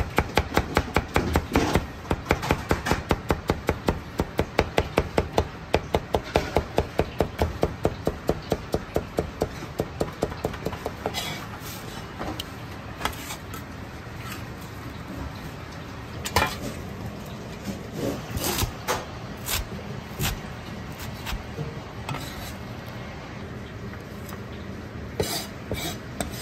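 Chinese cleaver julienning ginger on a plastic cutting board: a fast, even run of knife strokes knocking on the board, which stops about eleven seconds in. After that come scattered knocks and clatters of the knife and board as the cut strips are gathered.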